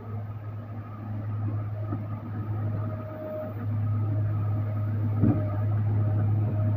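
JCB 455 wheel loader's six-cylinder common-rail diesel engine running under work with a steady low hum, growing louder about four seconds in. A single short knock a little after five seconds.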